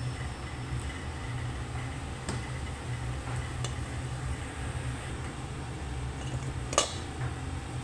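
Kitchen sounds at a wok of stir-frying chicken and vegetables: a steady low hum, a few faint taps of the wooden spatula, and one sharp clack near the end.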